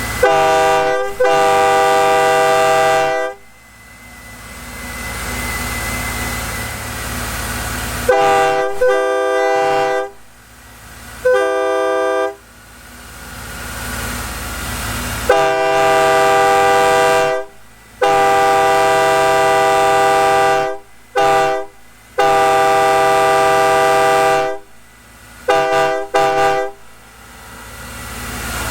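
Nathan AirChime K3L three-chime locomotive air horn with narrow-font bells, blown in a series of long and short blasts, each sounding a steady chord that starts and cuts off sharply.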